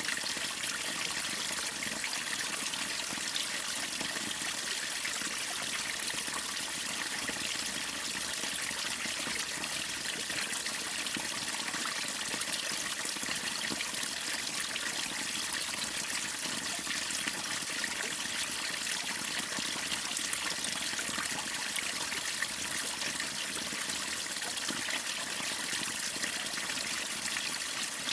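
Waterfall and stream water splashing and rushing, a steady even sound with no breaks.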